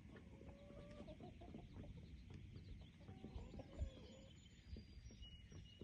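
Hens clucking softly: one drawn-out call about half a second in and another about three seconds in, over a low outdoor rumble.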